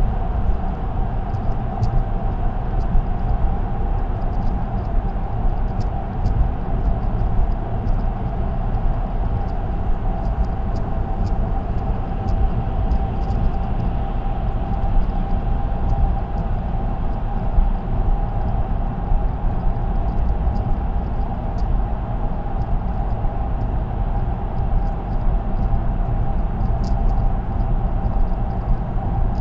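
Car driving at expressway speed: steady tyre and road rumble with a steady hum, and scattered faint ticks.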